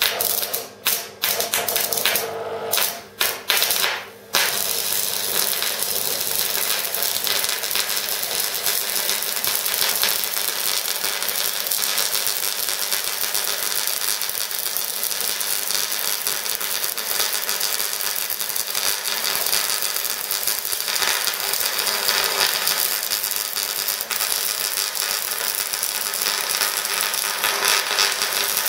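Stick-welding arc from a homemade AC welder built from microwave oven transformers. It sputters in a few short bursts over the first four seconds as the electrode is struck and the arc catches and breaks, then settles into a steady, continuous crackle as the bead is run.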